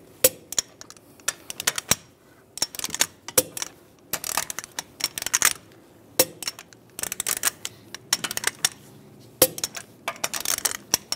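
Click-type torque wrench and socket on a wheel's lug bolts being torqued to 89 ft-lb in a cross pattern: a sharp click about every three seconds as a bolt reaches torque, with clinks and rattles of the socket being moved to the next bolt in between.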